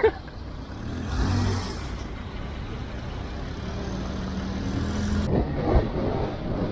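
A motor vehicle's engine running with a steady low hum. A short hiss comes about a second in.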